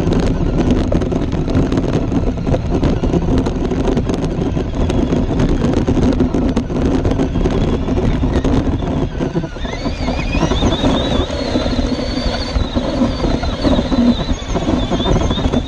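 Traxxas LaTrax SST electric RC truck heard from on board: tyres crunching and rattling over gravel, with wind on the microphone. From about ten seconds in, as it drives into grass, the electric motor's high whine rises in pitch and carries on.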